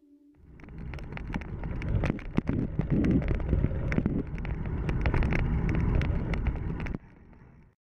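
Bicycle riding on an asphalt street heard through a handlebar-mounted action camera: wind buffeting the microphone and tyre rumble, with scattered clicks and rattles. It fades in about half a second in, grows louder, and cuts off suddenly near the end.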